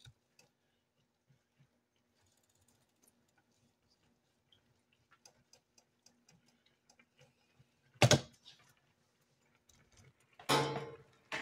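Kitchen handling sounds: faint scattered ticks and light clicks, then a single sharp knock about eight seconds in, and a brief clatter near the end, as chopped onion is gathered off a bamboo cutting board and the pot is reached.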